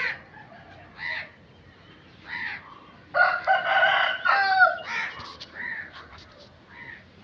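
Crows cawing: a string of short caws, with a longer, louder call lasting about a second and a half starting about three seconds in.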